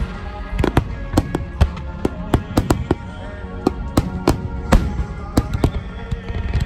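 Large aerial fireworks shells bursting in rapid succession, sharp bangs about three a second, over music played for the show.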